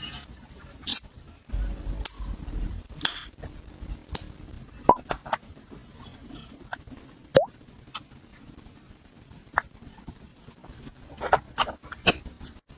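Kitchen items and packaging being handled and set down: scattered clicks, taps and soft knocks, with a low thud about a second and a half in.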